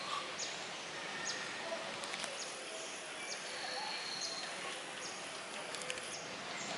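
Outdoor background hiss with a bird repeating a short, high, falling chirp about once a second, and a few faint clicks.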